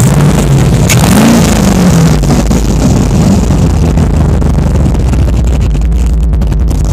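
De Tomaso Pantera's Ford V8 running loud under throttle. Its pitch rises over about the first second, falls back, then wavers as it keeps pulling.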